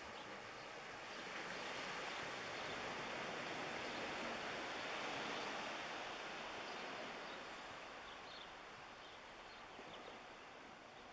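Small wave washing in on the shore: a hiss that swells over a few seconds and then fades away.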